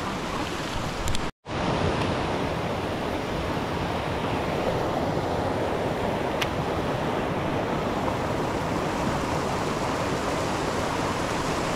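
Steady rush of creek water pouring over a small rock waterfall and churning white into the pool below. The sound cuts out for a moment about a second and a half in.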